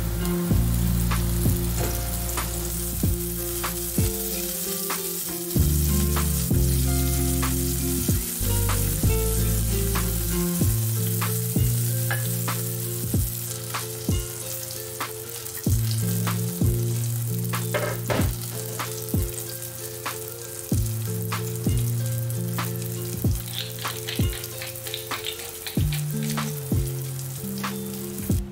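Food sizzling as it fries in oil in a pan, with occasional utensil clicks from stirring, over soft background music with a steady beat.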